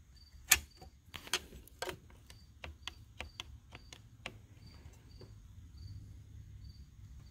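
Scattered light clicks and taps from hands handling steering-wheel hub parts, the sharpest about half a second in. A cricket chirps faintly at a steady pace behind them.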